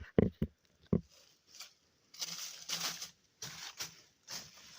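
Rustling and crunching in a few short bursts, each about half a second to a second long, in the second half.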